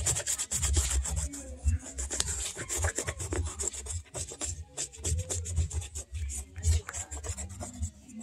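Toothbrush scrubbing rapidly back and forth over the suede upper of a Clarks boot: a dense run of short scratchy strokes with a couple of brief pauses.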